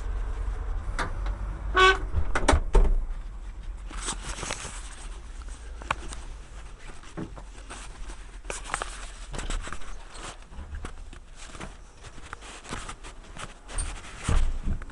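Footsteps and scattered knocks and clicks, with a short squeak about two seconds in; the loudest knocks come around two to three seconds in and near the end.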